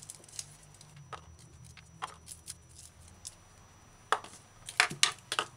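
Scattered light clicks and taps of hands peeling and trimming garlic cloves with a small kitchen knife on a countertop, a few sharper taps near the end. A faint steady low hum sits underneath.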